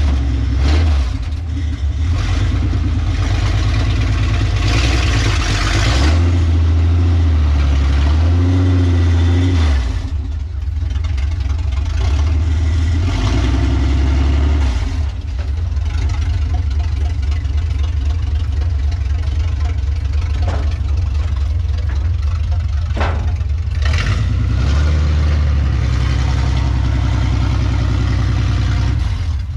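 Jeep CJ-7 engine running through a true dual exhaust off long-tube headers, before its new mufflers are fitted. It idles and is revved up and down a few times, the highest revs coming about a third of the way in and again near the end, while the Jeep is driven down off a car trailer.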